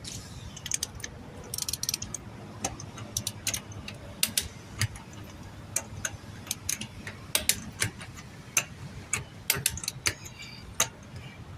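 Ratcheting wrench clicking in short irregular runs of sharp ticks, a few a second, as the wheel's lug nuts are run down and tightened.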